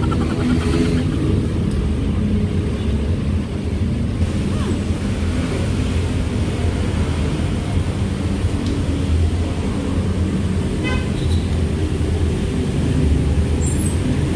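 Steady low rumble of background noise throughout, with a brief high-pitched tone about eleven seconds in.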